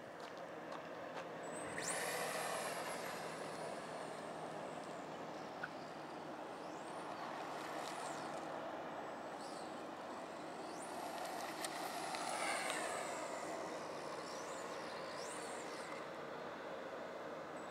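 Brushless electric motor of a fast R/C car whining high and thin. The whine shoots up in pitch and then slides back down several times as the car accelerates and slows, over a steady hiss.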